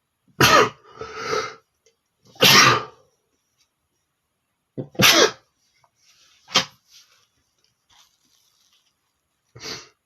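A man sneezing about five times, each one sudden and separate: three big sneezes in the first half, then a short sharp one and a smaller, quieter sneeze near the end.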